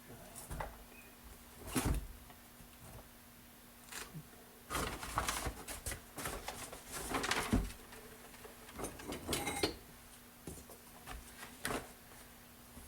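Metal tools and pipe being handled: irregular clanks, knocks and scrapes, with a brief metallic ring about nine seconds in. The loudest knocks come about two seconds in and around seven seconds in.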